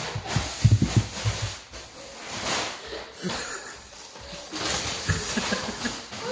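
Brown paper bag rustling and scraping on a concrete floor as a pet with its head stuck in it moves about, with irregular low knocks from footsteps and phone handling in the first second or so.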